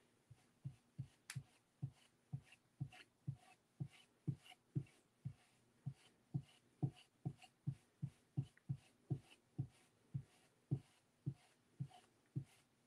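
Soft, quick taps of a small ink applicator dabbed again and again onto a die-cut paper tree lying on a craft mat, about two taps a second, some landing harder than others.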